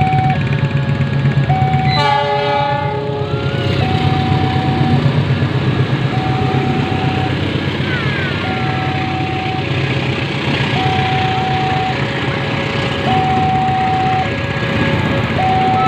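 Level-crossing warning alarm sounding its repeating two-tone signal, high and low notes alternating about every second. About two seconds in, the diesel locomotive sounds its horn once for about a second, and the train rumbles past.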